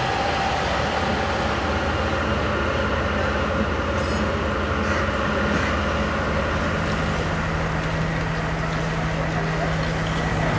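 Steady rumble of a train standing at a station, with a low engine hum that thickens a little past the middle.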